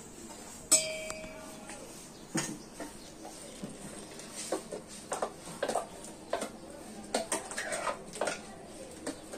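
A spoon scraping and tapping a stainless-steel mixer-grinder jar as ground masala paste is emptied from it into a metal cooking pot. There is one sharp metallic clang with a brief ringing under a second in, then a string of short clinks and taps.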